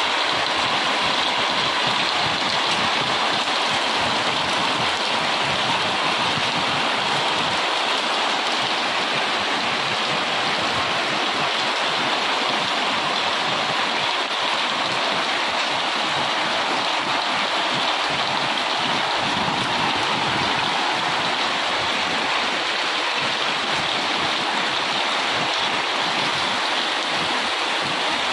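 Heavy rain pouring down steadily, an even, unbroken hiss of drops on leaves and ground.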